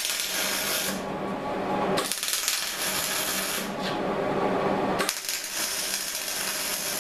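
MIG welder laying tack welds that join a thin steel sheet to angle iron: the arc crackles in three bursts with short pauses between them. The first burst stops about a second in, and the next two last about two seconds each. The tacks are meant to pull the torch-warped sheet flat.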